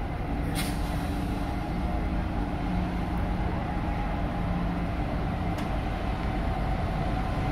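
Diesel locomotives at the head of a freight train approaching slowly, their engines giving a steady low drone. A short sharp click sounds about half a second in.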